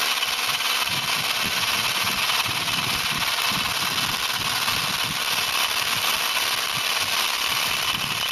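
A 19.2-volt cordless hammer drill running steadily and loudly, driving a masonry bit into a brick.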